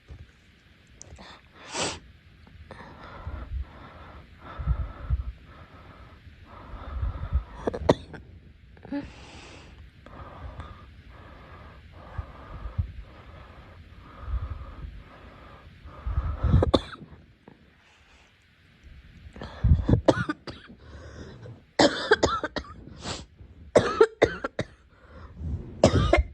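A girl coughing in separate short bouts a few seconds apart, with a quick run of coughs close together near the end.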